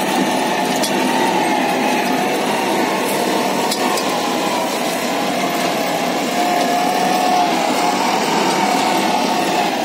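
Tractor's diesel engine running steadily under the load of pulling a reversible mouldboard plough through the soil.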